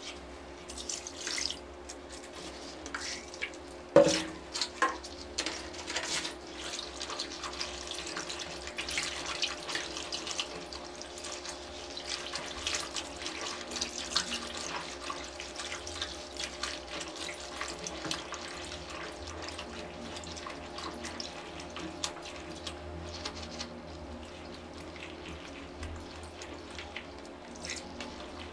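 Wet clothing sloshed and squeezed by gloved hands in a plastic basin of diluted bleach, with water splashing and running off the lifted fabric. A sharp knock comes about four seconds in.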